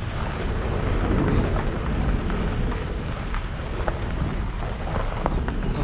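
Car driving slowly over a loose gravel and dirt road: a steady crunch of tyres on stones, with scattered small clicks from pebbles, over a low rumble.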